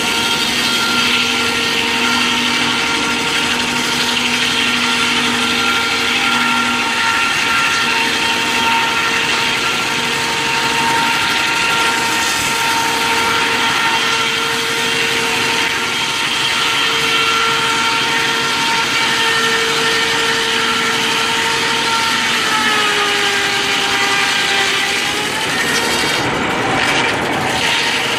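Large sawmill circular saw blade ripping through a log, a loud steady whine over the rasp of the cut. About 22 seconds in the pitch sags as the blade slows in the cut, then climbs back a few seconds later.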